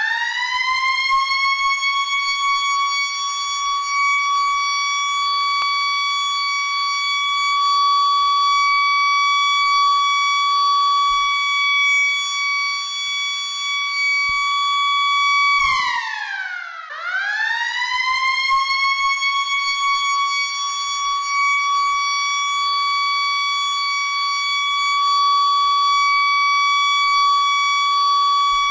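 School siren sounding for recess: it winds up to a steady, high, held tone. About halfway through it winds down and stops for about a second, then winds up again and holds.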